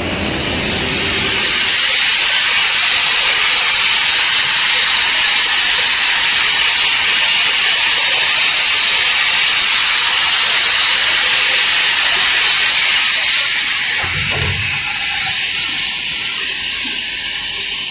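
Automatic track roller welding machine at work, with a loud steady hiss that eases off about fourteen seconds in.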